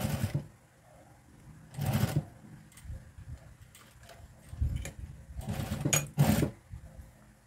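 Juki industrial sewing machine stitching in several short bursts, starting and stopping as bias binding is fed under the presser foot around the edge of the fabric.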